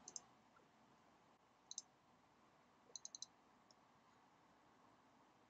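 Faint computer mouse clicks over near silence: a pair near the start, a single click about two seconds in, and a quick run of four clicks about three seconds in.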